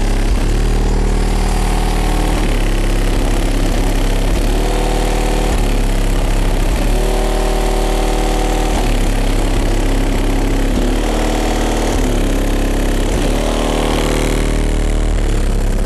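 Music played loud through a competition car audio system with subwoofers: a heavy, constant deep bass under held chords that change every second or two.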